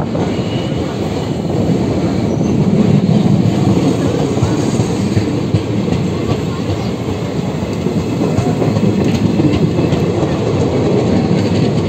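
Indian Railways passenger train running, heard from on board: a loud, steady rumble of wheels on the rails with a few faint clicks later on.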